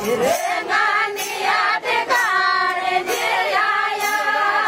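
A group of women singing a Rajasthani Meena folk song (Meenawati geet) together in high voices, with a few sharp hits under the singing.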